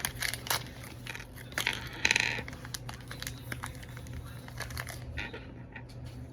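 Plastic packaging crinkling and rustling as it is handled, with scattered small clicks and a louder crinkle, like a tear, about two seconds in.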